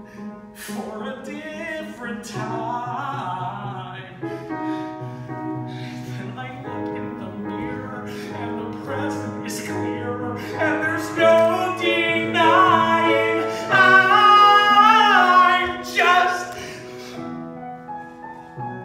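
A man singing a musical-theatre ballad solo over an accompaniment. He holds long notes with vibrato and belts loudest and highest from about two-thirds of the way through, then drops back near the end.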